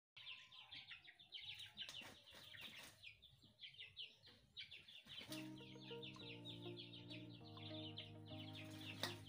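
Many small birds chirping rapidly. About five seconds in, background music with held, slowly changing notes comes in under the chirping.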